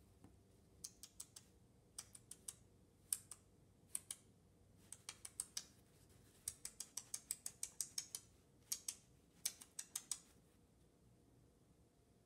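A series of sharp, light clicks in irregular clusters, with a quick run of about a dozen clicks a little past the middle, like typing on a keyboard.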